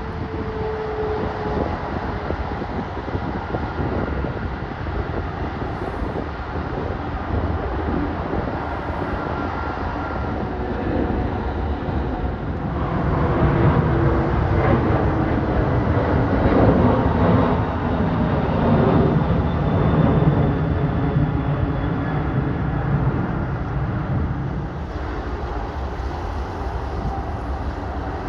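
Jet airliner engine noise, a steady rumble that swells louder about halfway through and then eases off as the aircraft passes.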